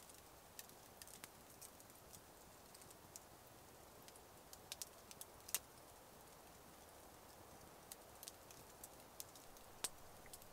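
Small spruce-wood campfire crackling faintly, with irregular sharp pops; the loudest pop comes about five and a half seconds in, and another near the end.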